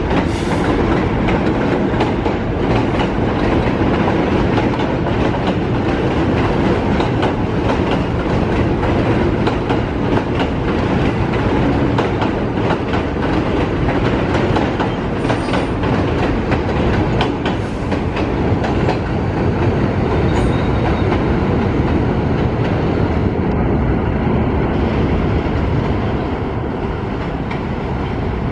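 New York City subway train running past: a steady, loud rumble with a rapid clickety-clack of wheels over rail joints, easing slightly near the end.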